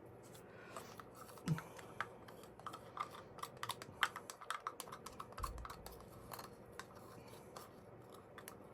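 Light, irregular clicks and taps of small craft items being handled on a work table, such as molds and stirring tools being set down and moved, densest in the middle and fading out near the end.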